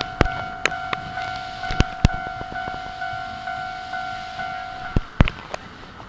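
Japanese level-crossing warning bell ringing steadily, then stopping about five seconds in, as the crossing clears. Over it, the irregular clack of an E217-series train's wheels over rail joints and points as it rolls slowly by.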